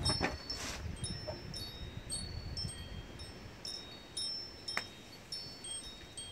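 Wind chimes ringing lightly: scattered clear high tones at several fixed pitches, coming and going. A single sharp click sounds about three-quarters of the way through.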